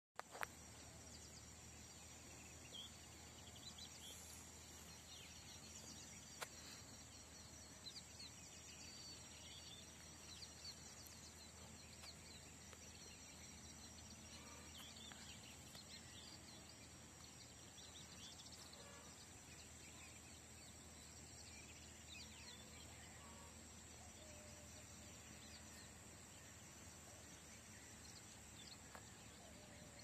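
Faint rural dawn ambience: many small birds chirping and twittering over a steady high insect trill. A few sharp clicks stand out, the loudest near the start and about six seconds in.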